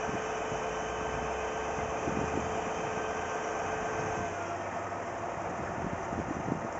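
Utility boom truck's engine running steadily while its boom lifts a wooden pole, with a thin steady whine that cuts off a little after four seconds in.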